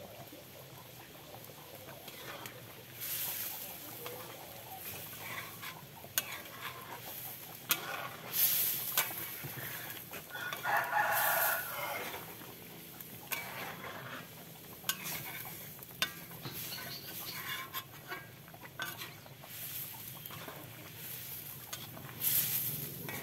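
A ladle stirring and scraping in a black iron wok of buffalo rendang, with scattered clinks and knocks. A rooster crows once about halfway through.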